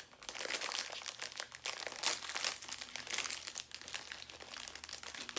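Plastic wrapper of an Oreo Cakesters snack cake crinkling as it is bitten and pulled open, a dense run of crackles that peaks about two and three seconds in.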